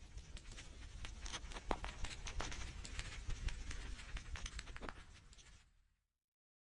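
Rain pattering, with many small drop ticks over a steady hiss and low rumble; it fades out about five seconds in and stops.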